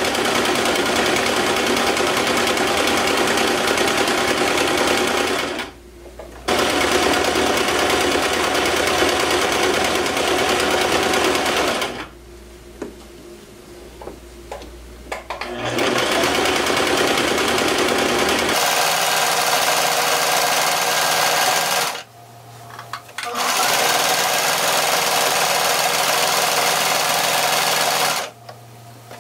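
Singer home sewing machine running a stretch stitch through a velour track-pant hem. It sews in several spurts with short stops in between: briefly about six seconds in, for a few seconds about twelve seconds in, again about twenty-two seconds in, and once more near the end.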